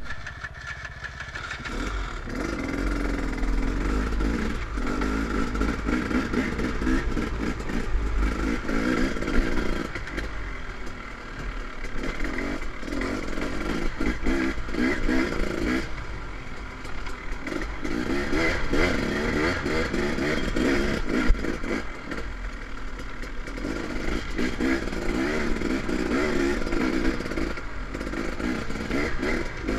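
The 2013 KTM 300 XC-W's two-stroke dirt-bike engine revving up and falling back over and over with the throttle while being ridden. A low rumble of wind on the microphone runs through the first third, and there is one sharp knock a little past two-thirds through.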